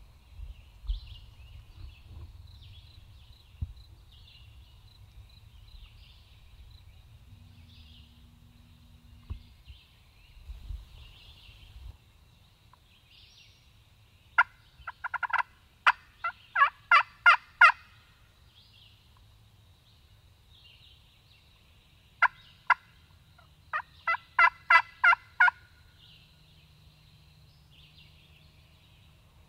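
Turkey yelps: two runs of sharp, evenly spaced notes, about ten in each, the first around the middle and the second near the end, growing louder within each run.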